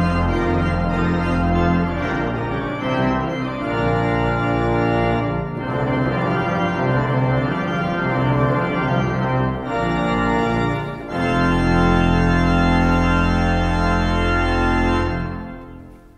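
Church pipe organ playing held chords. The deep pedal bass drops out about two seconds in and comes back with a full, loud chord near the end, which then releases and fades away.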